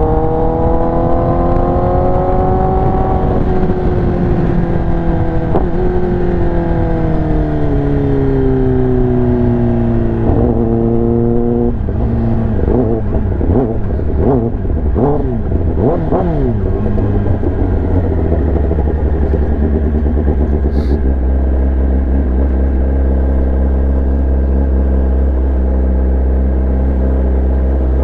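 Kawasaki ZX-10R inline-four through an SC-Project exhaust. The engine note rises a little, then falls away steadily over several seconds. A quick series of throttle blips follows, rising and dropping in pitch, before the engine settles into a steady low idle about eighteen seconds in.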